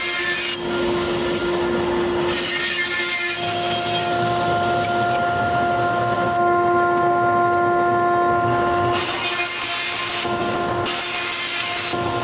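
A woodworking power saw running with a steady whine while it cuts wood for hoop stock. Stretches of cutting noise come and go over the whine, near the start and again near the end.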